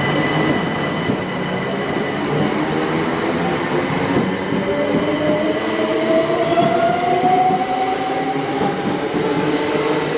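Train running through a station, a steady rumble of wheels on rail with a whine that rises slowly in pitch through the middle.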